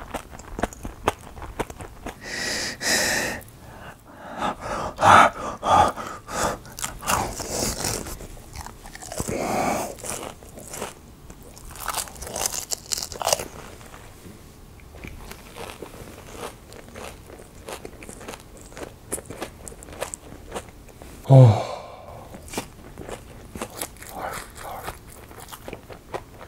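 Close-miked chewing of a full mouthful of batter-fried, syrup-soaked Indian milk sweets: crisp crunching and dense small wet clicks, with louder bursts of crunching in the first half. Late on, a short rising vocal sound comes from the eater.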